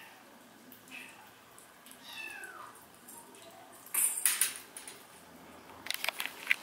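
Kittens meowing: a short meow about a second in and a long falling meow about two seconds in. A loud rustling burst comes about four seconds in, and sharp clicks near the end.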